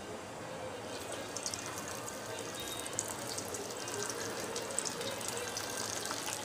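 Sabudana vadas deep-frying in hot oil in a kadhai: a steady sizzle with fine crackling, which picks up about a second in.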